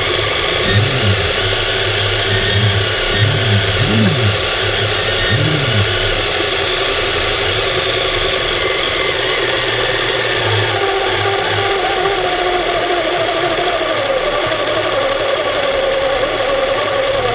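Steady mechanical hum and hiss heard underwater, with low wavering swoops in the first few seconds and a wavering tone from about ten seconds in.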